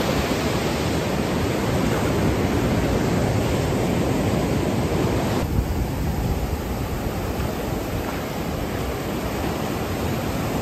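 Ocean surf breaking and washing up a sand beach: a steady rush of noise, with some wind on the microphone. The hiss softens a little about halfway through.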